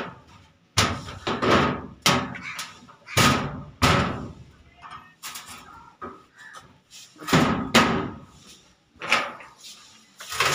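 A series of loud, irregular knocks and bangs, a dozen or so, each dying away quickly.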